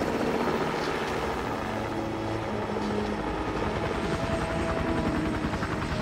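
Helicopter rotor chopping overhead in a fast, steady beat.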